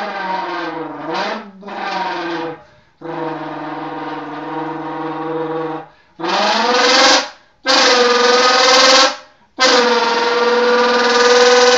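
Mouth-made V10 engine sound, a person's voice buzzed through a can. Short gliding revs first, then a steady lower drone for about three seconds, then from about six seconds in three louder, higher revs that rise and hold, each cut off sharply.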